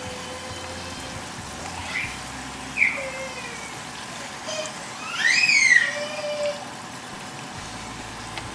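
Sweet potato slices frying in shallow oil in a nonstick pan, a steady sizzle. Over it come several short squeaks that slide up and down in pitch, the longest and loudest about five seconds in, from the plastic spatula scraping the pan as it works the slices.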